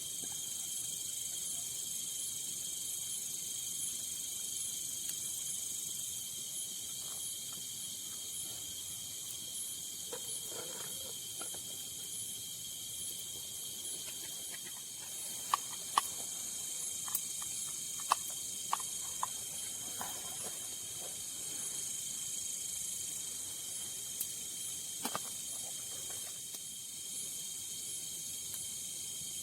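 Steady chorus of night insects, crickets trilling in a high shrill hiss with a quick pulsing note on top. A few sharp clicks or snaps fall in the middle and once more near the end.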